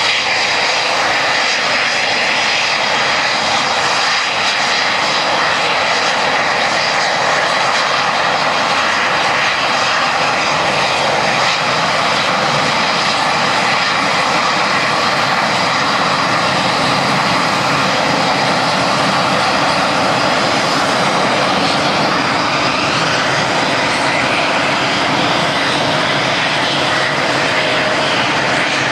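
Eurofighter Typhoon's twin EJ200 jet engines running at close range as the fighter taxis, a loud, steady jet noise with a thin whine that shifts in pitch in the second half.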